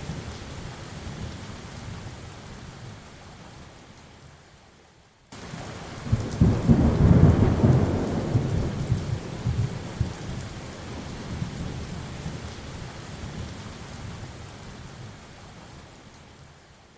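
Rain falling with rolling thunder. A low rumble of thunder fades away, then about five seconds in a loud new peal starts suddenly, swells for a couple of seconds and slowly dies away under the rain.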